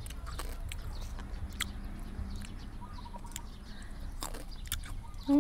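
Close-up chewing of wild grapes: scattered sharp clicks and smacks of biting and mouth sounds over a low rumble. Near the end a short, loud voiced hum bends up and back down.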